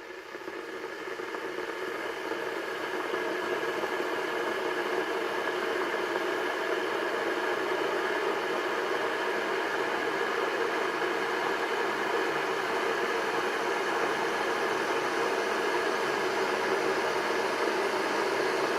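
Electric kettle heating water: a steady rushing hiss that grows louder over the first few seconds, then holds steady as the water heats toward the boil.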